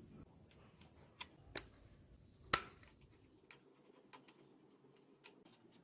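A few scattered light clicks and taps, the loudest one about two and a half seconds in.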